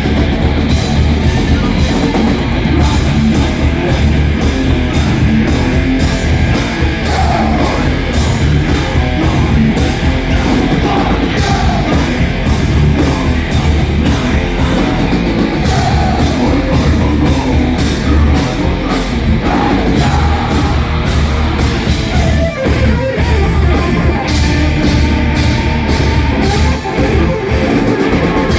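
Heavy metal band playing live: electric guitars, bass and a drum kit with steady cymbal and drum hits, with sung vocals at times.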